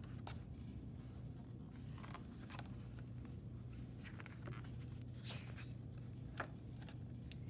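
Pages of a picture book being turned and pressed flat by hand: faint paper rustles and soft taps, with a louder paper slide a little past the middle, over a low steady hum.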